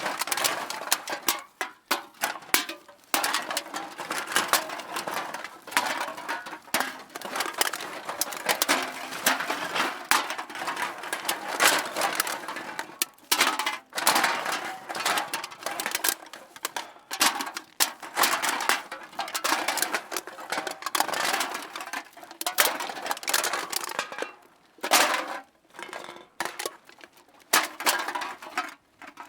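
Cans being dropped into a bag one after another, clinking and clattering against each other in a dense, irregular run with a few short pauses.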